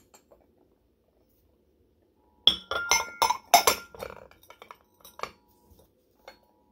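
Ceramic tea-for-one set being stacked together: teapot, lid, cup and saucer clink against each other. A quick run of sharp clinks with a short ring comes about two and a half seconds in, then a few lighter taps near the end.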